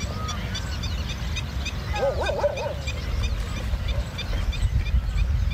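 Dog yelping, a short burst of yips about two seconds in, from the pack holding a nilgai in the river, over a steady low rumble and a run of faint high chirps.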